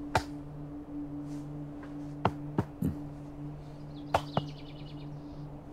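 Pats on the back of a leather jacket during a hug, a few sharp slaps, three in quick succession about two seconds in and two more about four seconds in, over a low steady hum. A short bird trill sounds about four seconds in.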